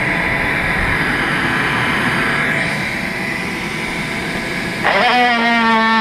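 A steady rushing noise, then about five seconds in a cordless power tool starts up with a loud, steady buzzing whine whose pitch sags slightly as it cuts into the wall siding.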